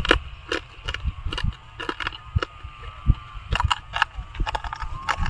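Shards of bottle glass crunching and cracking between a man's teeth as he chews them, an irregular run of sharp cracks, several a second.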